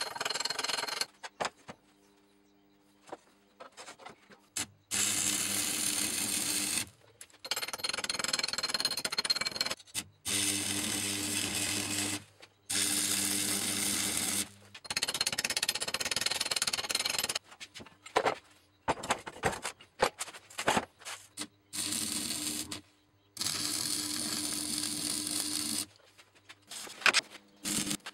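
Electric arc welding on a broken vise shaft: a series of short weld runs, each a crackling, sizzling burst of about two seconds with a steady hum under it, separated by brief pauses. A few clicks and knocks of metal come between runs, and again near the end.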